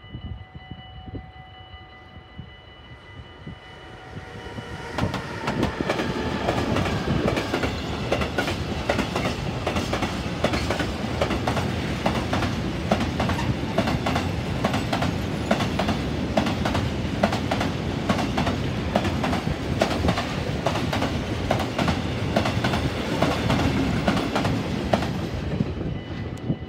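Freight train passing close by: a Siemens Vectron locomotive followed by a long string of tank wagons. The wheels rumble and click rhythmically over the rail joints. The sound swells about five seconds in, holds steady, and drops away near the end as the last wagon passes.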